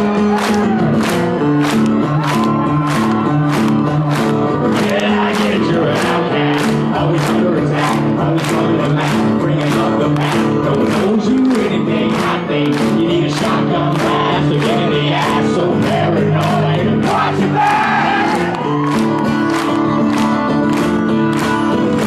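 Acoustic guitar playing a steady chord riff while a concert crowd claps along in time, about two claps a second, with audience voices singing and shouting over it.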